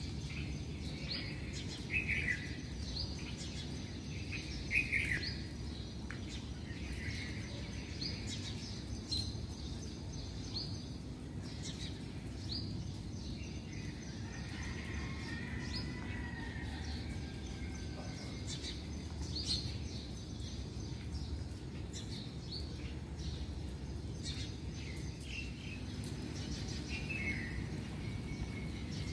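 Birds chirping in short, scattered calls over a steady low background rumble, with two louder calls about two and five seconds in.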